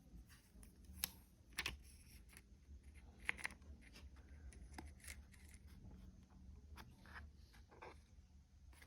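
Quiet handling of a phone and its packaging: a few faint clicks and taps, about a second in, a little later and again past three seconds, with light scratching and rustling in between.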